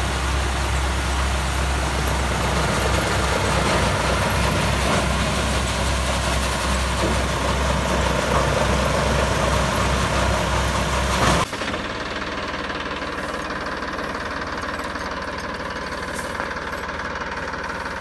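Wheat thresher running at work, driven by a Massey Ferguson tractor's diesel engine: a steady, dense mechanical din of the threshing drum and fan with a low engine rumble. About two thirds of the way through the sound changes abruptly to a quieter, duller run with less rumble.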